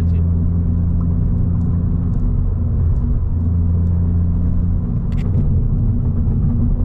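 2022 Honda Civic Si's turbocharged 1.5-litre four-cylinder engine running steadily through an aftermarket 27WON downpipe, front pipe and catback exhaust, with a deep, even drone and no revving.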